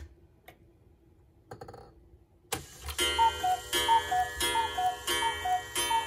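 Hand-made German Black Forest cuckoo clock: a few light clicks as the minute hand is pushed round. About two and a half seconds in, the movement trips and the clock starts striking noon: bellows-driven cuckoo calls, a high note then a lower one, about three calls every two seconds, each with a stroke on the ringing gong.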